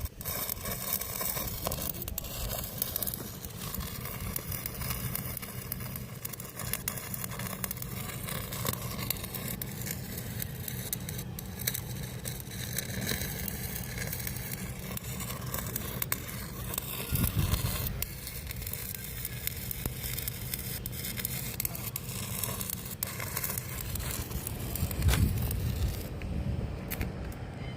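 Electric arc welding on a 10-inch pipe joint: a steady crackling and sizzling arc over a low hum. The high crackle drops away near the end.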